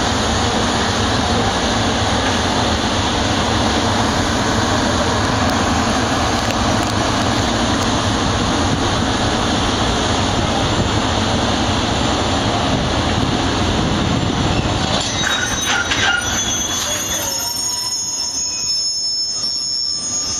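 Freight train passing close by: a steady, loud rumble and clatter of wagons on the rails that thins out about 16 seconds in, with high thin squealing tones near the end.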